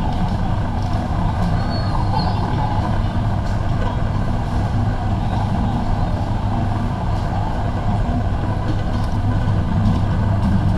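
Warehouse store ambience: a steady low mechanical hum under indistinct shopper chatter.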